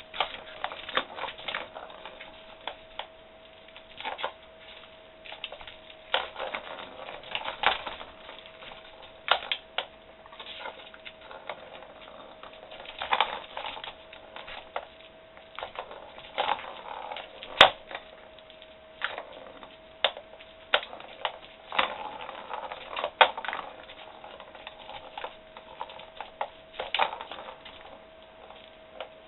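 Kittens batting at and clambering over a round plastic cat toy: irregular clicks, taps and rattles of plastic, with one sharper knock partway through. A steady faint hum runs underneath.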